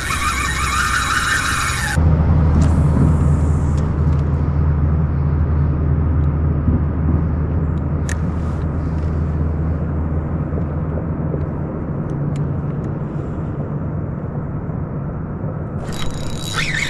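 A spinning fishing reel buzzes for the first two seconds, then a steady low rumble carries on. About a second before the end, the reel's drag starts screaming as a striped bass pulls line off.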